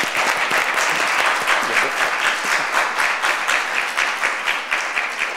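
Audience applauding, a steady patter of many hands that fades out near the end.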